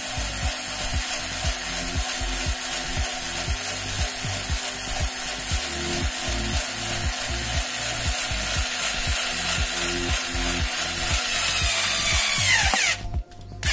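Electric hand drill running steadily as it bores into the metal of a small 50 cc generator engine. Near the end it is released and winds down with a falling whine. A steady low beat of background music runs underneath.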